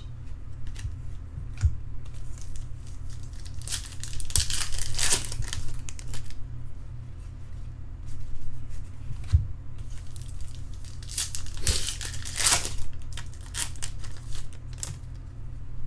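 Trading-card pack wrappers being torn open and crinkled, with the loudest tearing about four seconds in and again around eleven to twelve seconds, and lighter rustling between. A steady low hum runs underneath.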